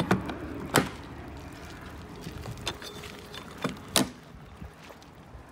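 Aluminum door latch on an Eby horse trailer worked by hand: a series of sharp metallic clicks and clunks, the loudest just under a second in and about four seconds in.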